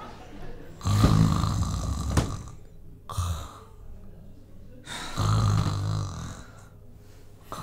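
A man snoring: two long, low snores about four seconds apart, with a brief shorter one between them.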